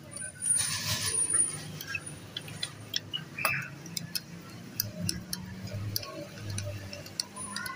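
Screwdriver turning a screw into a sewing machine's steel needle plate: irregular light metallic clicks and ticks, with a short scrape about a second in.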